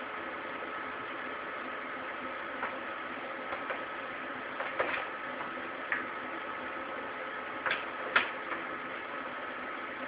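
Scattered sharp clicks and knocks of cable connectors and fittings being handled as a spool gun is hooked up to a Thermal Arc Fabricator 181 welder, the loudest two close together about eight seconds in. Under them a steady hum with a thin constant tone.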